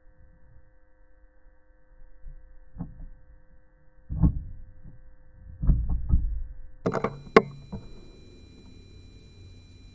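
A few dull, low thumps, the loudest about four seconds in and a pair near six seconds, followed by a sharp click and some light rustling.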